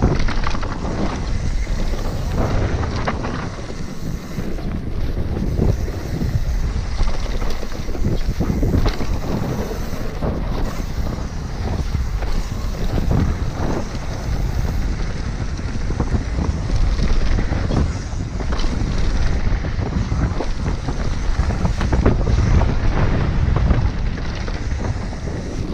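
Wind rushing over the microphone as a mountain bike descends a dirt trail at speed, with tyre noise on the dirt and frequent knocks and rattles from the bike over bumps.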